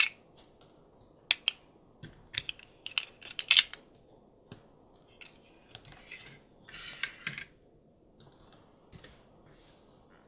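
Small plastic clicks and scrapes of snap-on MagiClip doll dresses being pulled off and small plastic dolls being handled and set down. A longer rubbing scrape comes about seven seconds in.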